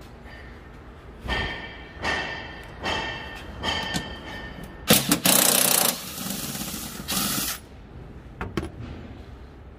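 Metal parts of a tractor's seized mechanical brake being worked: four ringing metallic strokes about a second apart. These are followed by a loud hiss lasting about a second and a shorter one soon after, the loudest sounds here.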